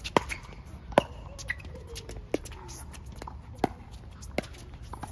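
Pickleball rally: sharp pops of paddles hitting the hollow plastic ball, five hits at uneven intervals of about a second, the loudest about a second in.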